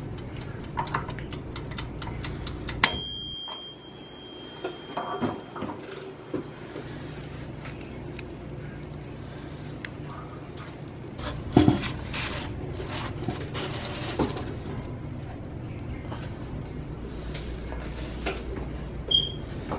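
Farberware toaster oven's timer bell rings once about three seconds in, and the oven's steady hum falls away after it as the oven shuts off. Later, metal rack and pan clatter as the pizza is taken out.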